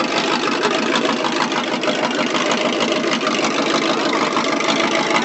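A ride monster truck's engine idling steadily.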